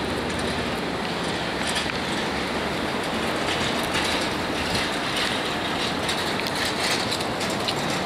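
Steady road traffic noise, with a loose rattling clatter over it.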